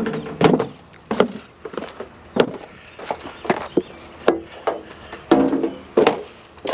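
Aluminum scrap being stomped flat underfoot: a string of about ten sharp, irregular impacts of a boot on thin metal.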